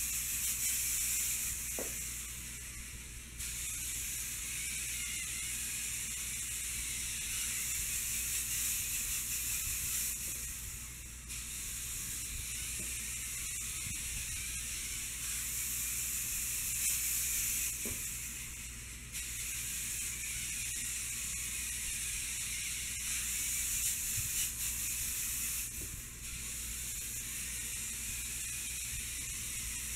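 Steady hiss with a low hum underneath and no distinct events. Its level steps up or down abruptly a few times, at cuts between takes.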